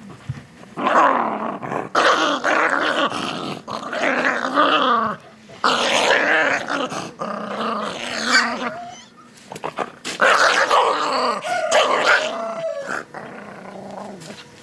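A dog growling and yelping in several long, wavering bouts with short breaks between them.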